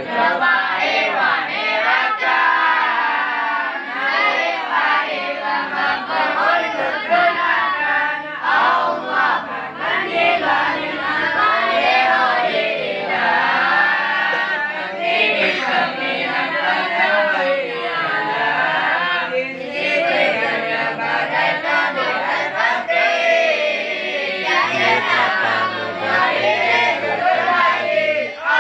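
A group of young students' voices chanting nadham in unison: rhymed verses of Arabic grammar (nahwu and sharaf) in Acehnese, sung to a melody. The chanting is continuous and loud.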